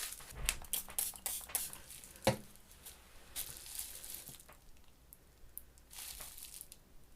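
Faint crackling and rustling of paper or plastic being handled, as a scatter of small clicks with one sharper tap a little over two seconds in.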